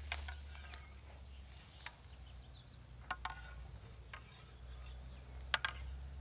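Wooden practice swords clacking together several times in sparring, short sharp knocks with a brief woody ring, the loudest pair about five and a half seconds in, over a steady low hum.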